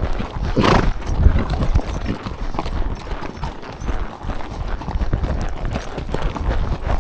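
Horses' hooves striking a forest trail at speed, a dense irregular run of hoofbeats, with one brief louder sound about a second in.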